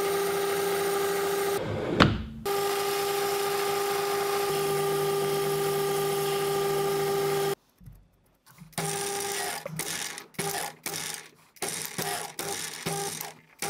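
Metal lathe running with a steady tone while drilling and turning a 1214 steel pin, with a short sharp disturbance about two seconds in. It cuts off abruptly a little past halfway, and after a brief quiet the sound returns only in short, choppy bursts.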